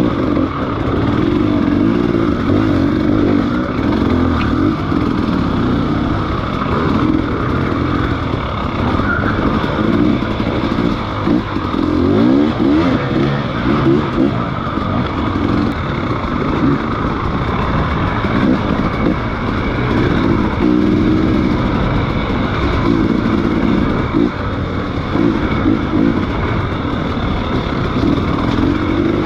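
Motorcycle engine running under way, its pitch wavering up and down as the throttle changes.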